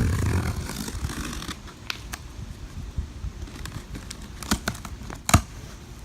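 Cardboard boxes being opened and handled: rustling and scraping at first, then scattered clicks and knocks, with one sharp knock near the end.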